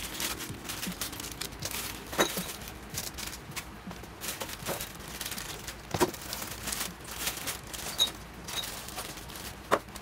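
Plastic snack packaging crinkling and rustling as items are moved around by hand in plastic storage bins, with a few sharp knocks of items set down, about 2, 6, 8 and just under 10 seconds in.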